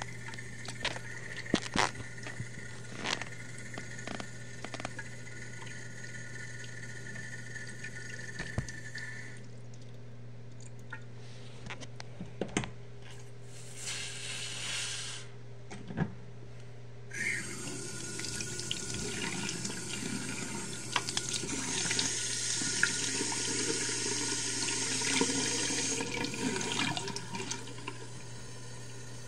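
Bathroom sink faucet turned on about halfway through, water running steadily and splashing into the porcelain basin for about ten seconds. A few sharp taps and clicks come earlier.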